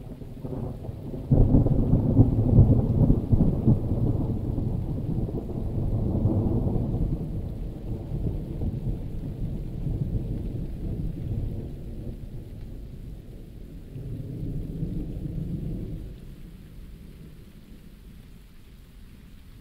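Thunder: a sudden loud clap about a second in that rolls into a long, low rumble and slowly fades, then a second, weaker swell of rumble later on. Steady rain falls underneath.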